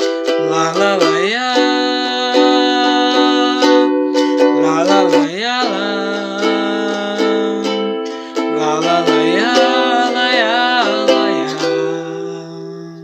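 Acoustic song outro: a strummed acoustic string instrument under long, held wordless vocal notes that bend and waver in pitch, fading out near the end.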